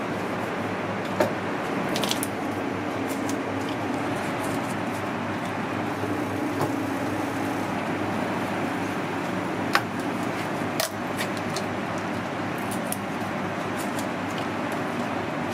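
Steady kitchen background noise with a few sharp clicks and knocks of a knife and hands working a raw whole duck on a cutting board.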